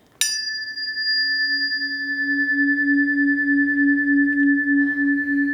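Metal singing bowl struck once, leaving a clear high ring. About a second later a low, wavering hum swells in and holds steady.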